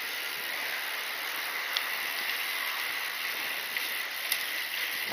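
Mountain bike being ridden: steady rolling noise with a couple of faint sharp clicks, one a little under two seconds in and one near the end.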